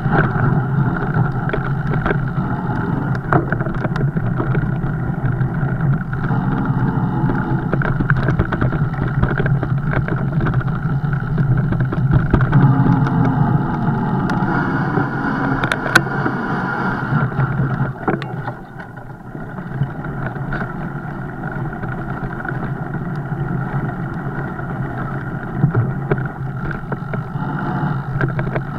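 Riding noise from a fat bike: a steady rolling rumble with wind on the microphone and many small knocks and rattles, easing a little about two-thirds of the way in.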